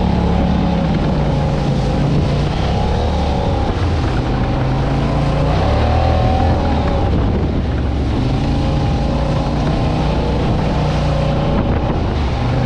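Off-road vehicle engine running under way close to the microphone, its pitch rising and falling repeatedly as the throttle opens and closes.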